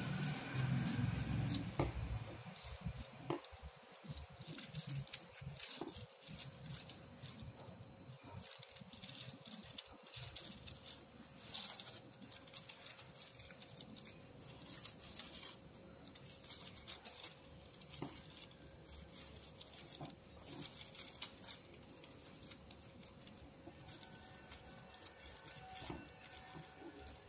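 Paper rustling and crinkling as a fringed strip of craft paper is rolled up by hand, heard as scattered small rustles and clicks over a faint steady hum.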